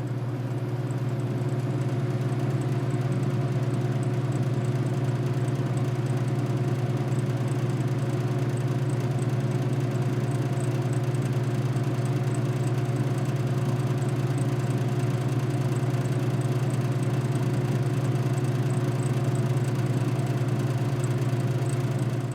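Drinking fountain's water-cooler compressor running with a steady low hum.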